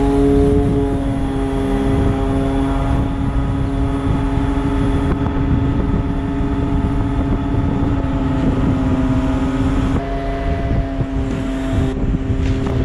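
Truck-mounted loader crane at work: the truck's diesel engine running at raised revs to drive the crane's hydraulic pump, a steady drone with a whine, its pitch shifting a little as the boom moves and dipping briefly about ten seconds in.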